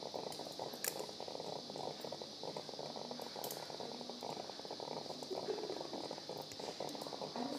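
Operating-theatre background noise, a steady hiss and crackle, with a few faint clicks of steel surgical instruments being handled during skin suturing.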